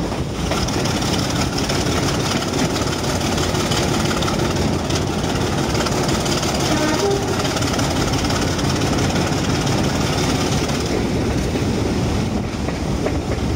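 Class 24 diesel locomotive's Sulzer six-cylinder engine working under power along with wheel and rail noise, heard from alongside the locomotive. Just after the start the sound turns harsher and echoing as the train runs into a tunnel, and it eases back near the end as the train comes out into the open.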